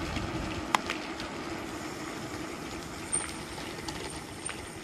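DYU A5 14-inch electric folding bike running on throttle alone: a faint steady motor hum over the rush of tyres on wet asphalt. A sharp click comes about three-quarters of a second in.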